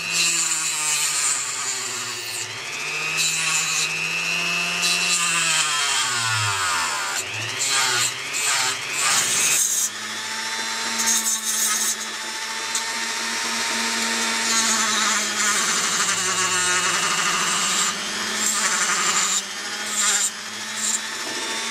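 Dremel-type rotary tool with a small disc running at high speed, grinding a hardened epoxy lug on a plastic camera mount clip. The motor pitch sags and recovers as the disc bites, with repeated scratchy grinding bursts where it touches the work.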